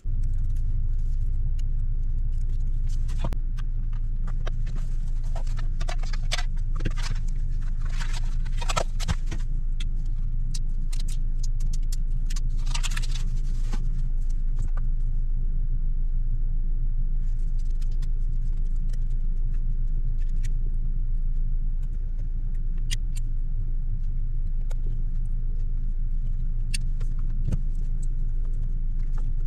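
A steady low rumble of an idling vehicle engine, with scattered light clicks and taps from small tools on the phone and a brief scraping sound about 13 seconds in.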